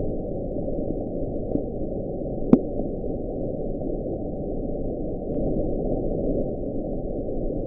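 Steady low hiss of an underwater hydrophone recording, with a single sharp click about two and a half seconds in.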